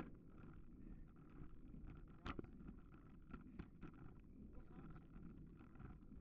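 Faint wind and rolling rumble on a riding bicycle's camera microphone, with scattered light clicks and rattles, one sharper about two seconds in.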